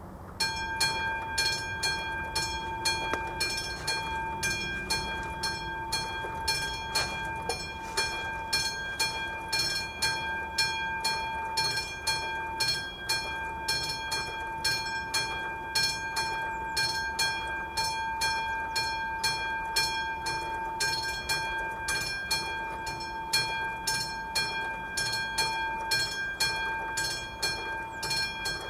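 Railway level-crossing warning bell of an AŽD 71 signal (classic bell) ringing in rapid, even strokes, starting about half a second in as the crossing's red lights begin to flash: the warning that a train is approaching.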